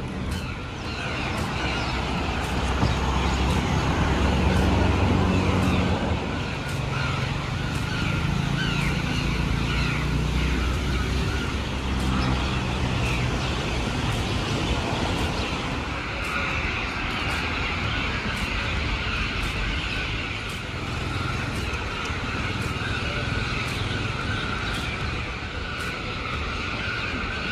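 City road traffic: motor vehicle engines running and passing over a steady street noise, loudest from about three to six seconds in.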